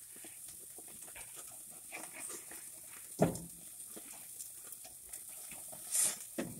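Burger patties sizzling and crackling on a gas grill's grate, with a metal spatula working them: one sharp clack a little over three seconds in, and a scrape and knock near the end as a patty is flipped.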